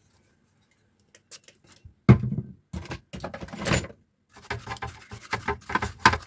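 Tools and parts being handled on a workbench during amplifier assembly: a few light clicks, a sharp thump about two seconds in, rustling, then a run of quick scratchy clicks and scrapes from about four seconds in.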